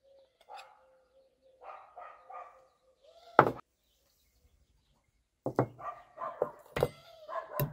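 A dog barking: one loud bark about halfway through, then a run of repeated barks in the last two seconds.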